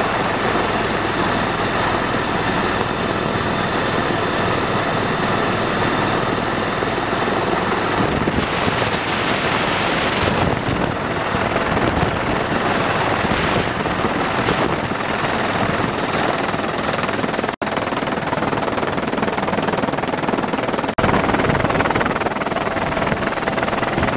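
Helicopter heard from aboard in flight: dense, steady rotor and engine noise with a thin high whine over it, as it comes in to land on a helipad. The sound cuts out for an instant twice in the second half.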